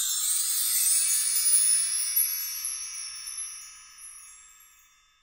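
Chime sound effect: many high bell-like tones ringing together and slowly dying away, fading out by the end.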